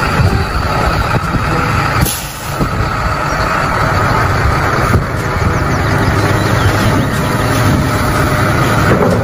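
Heavy vehicle engine running steadily and loudly, with a brief dip in level about two seconds in.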